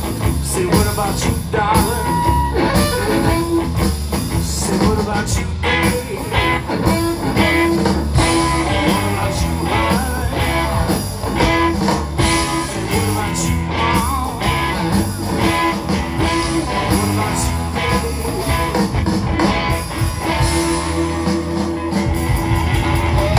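Live blues band playing an instrumental stretch: electric guitars over bass and a drum kit.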